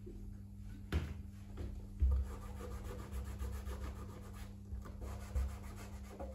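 A cloth dampened with alcohol is rubbed back and forth over the white rubber sole of a leather loafer, cleaning it. There is a sharp knock about a second in and a heavier thump at about two seconds, then uneven scrubbing.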